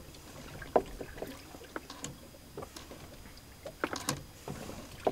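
Faint, scattered knocks and clicks at irregular intervals over a low steady background, two of them a little louder, about a second in and about four seconds in.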